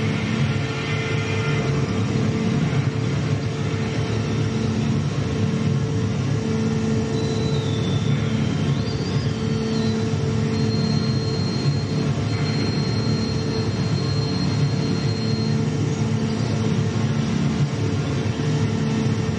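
Live electronic music played on a mixer and effects pedals: a dense, steady rumbling drone with low humming tones underneath. Thin high whistling tones wander in about halfway through, then one high tone is held for about five seconds.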